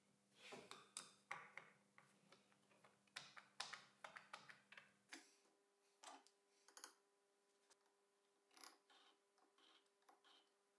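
Faint scattered clicks, taps and light scraping of small hand tools at work: a screwdriver fastening a small acrylic piece into a plywood recess, then a steel rule and square being handled while a line is marked. The clicks come thickest in the first half and thin out later.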